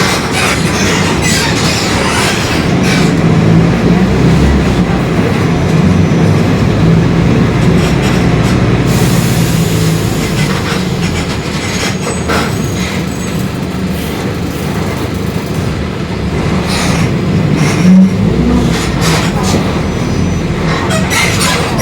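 Mercedes-Benz OF-1721 city bus running on the road, its engine note steady under a busy clatter of body rattles and a sharp knock near the end, with the differential growling.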